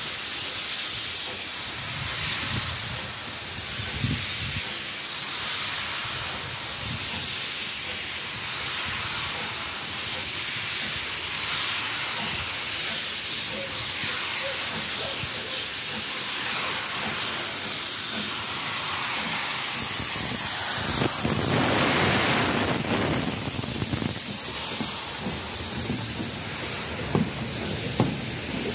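Steam locomotive hissing steam, a steady hiss that swells louder about three quarters of the way through.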